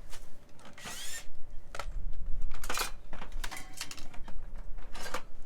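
Scattered clicks, knocks and clinks of tools and building pieces being handled, with a short squeak about a second in.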